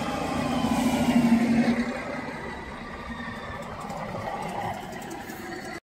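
A Stadler RegioShuttle diesel railcar passes close by. Its engine drone and wheel noise are loudest about a second in, then ease off as it goes past, with a whine falling in pitch. The sound cuts off suddenly at the end.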